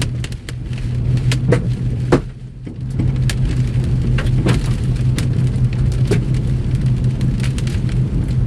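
Rain striking the outside of a moving vehicle, irregular sharp ticks on the body and windshield over the steady low hum of the vehicle running, briefly quieter a couple of seconds in.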